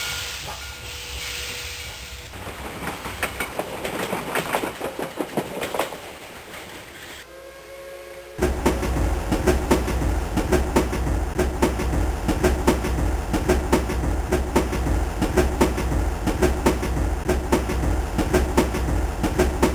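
Train wheels clicking over rail joints with a low rumble, the clickety-clack of a train on the move. About eight seconds in the sound jumps abruptly to a louder, faster, denser run of wheel clicks.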